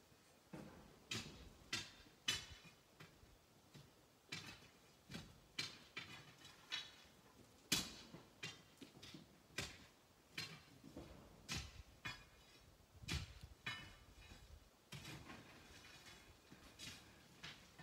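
Hand tools striking rock: a run of sharp, irregular knocks and clinks, about one or two a second, each ringing briefly.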